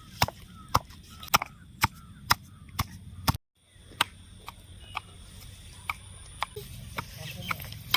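Malabar nut (adhatoda) leaves being pounded, sharp knocks about two a second, crushing the leaves dry to get their juice. The knocks break off briefly a little past the middle and come back fainter.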